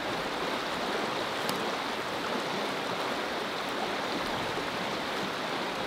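Shallow rocky stream rushing steadily over stones and small riffles.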